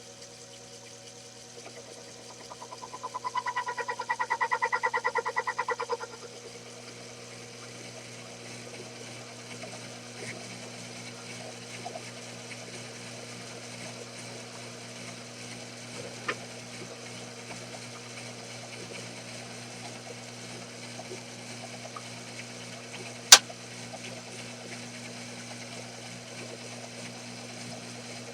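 Mini milling machine running a long power-fed cut, with a steady motor hum. About three seconds in, a rapidly pulsing whine swells for a few seconds and then stops. A sharp click comes near the end.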